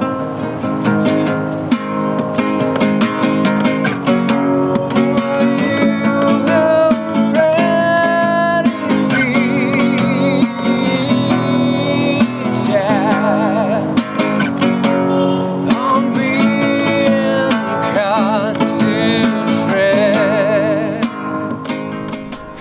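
Acoustic guitar strummed under a singing voice with a wavering vibrato: a song with guitar accompaniment. It fades near the end.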